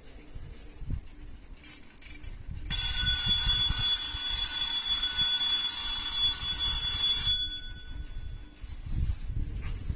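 Bell of a vintage Garant Tokyo Tokei space-age tulip alarm clock ringing steadily for about four and a half seconds, then cutting off. Two brief bursts come just before the ringing starts.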